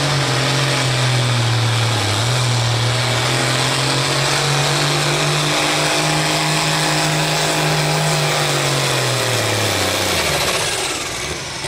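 John Deere 4255 pulling tractor's six-cylinder turbocharged diesel engine running hard at steady high revs under load while it drags a weight-transfer sled. About nine seconds in, the revs fall away as the pull ends.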